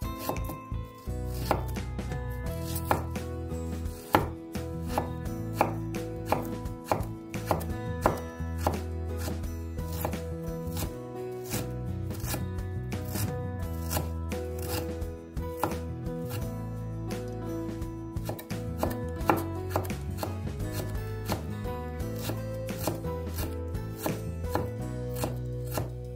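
Chef's knife slicing and mincing fresh ginger on a wooden chopping board: a long run of sharp knife strikes on the board, irregular in spacing.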